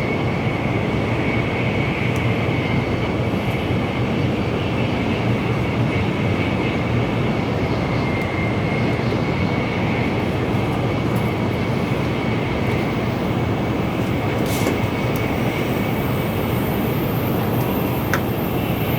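Tokaido Shinkansen N700A train running at speed, heard inside the passenger car: a steady rumble and rush of running noise, with a faint high tone that fades about two-thirds of the way through.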